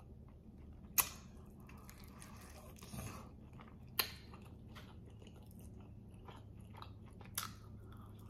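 Faint close-up chewing of a spicy chicken wing, with small mouth clicks throughout and three sharper clicks, one each about 1, 4 and 7 seconds in. A low steady hum runs underneath.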